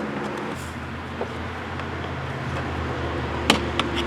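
Low steady hum of a motor vehicle running, with a sharp click about three and a half seconds in and two lighter clicks just after.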